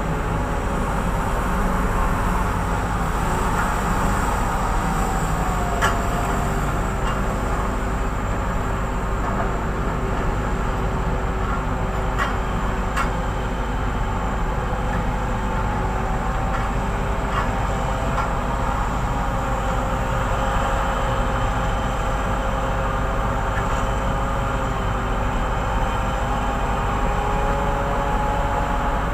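Steady drone of heavy mining machinery at work: the diesel engines of a Hitachi 2600 mining excavator and a large haul dump truck running together, with a whining tone that drifts slightly in pitch. A few sharp clicks are heard around the middle.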